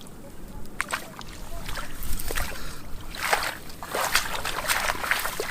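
Shallow muddy water splashing and sloshing in irregular bursts, heaviest about three to five seconds in.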